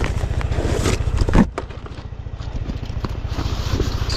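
A motorcycle engine idling steadily with a fast, even pulse, and a brief knock about a second and a half in.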